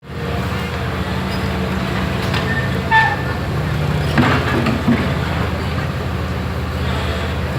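Excavator engine running steadily at a constant speed, with a few short voices about halfway through.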